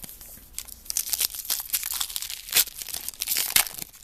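Crinkling and tearing of a trading-card pack wrapper as a pack of football cards is torn open and handled, a dense crackly rustle with many sharp crackles, loudest in the middle.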